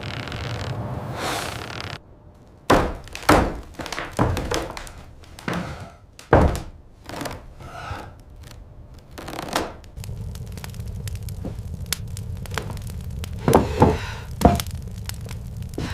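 A series of heavy thuds and knocks at uneven intervals, the strongest clustered in the first half, after a couple of seconds of rough rushing noise; later, smaller clicks and a few more knocks over a steady low rumble.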